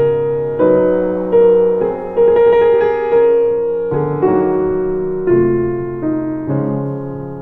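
Slow piano music: chords struck about once a second and left to ring, the gaps between them lengthening and the music growing quieter toward the end.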